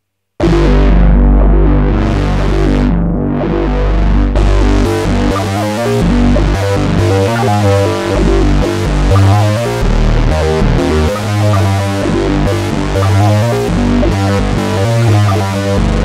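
Moog Muse eight-voice analog polyphonic synthesizer playing its "Bassionic" factory bass preset. It starts suddenly about half a second in with a deep held note whose brightness closes down and opens up twice, then moves into a rhythmic pattern of short, chopped bass notes.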